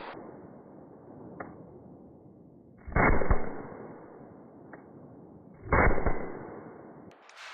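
Two suppressed 9mm shots from a CZ Scorpion Evo with a home-built freeze-plug-baffle suppressor, firing subsonic 158-grain ammunition, about three seconds apart. Each report is followed a split second later by a second sharp crack.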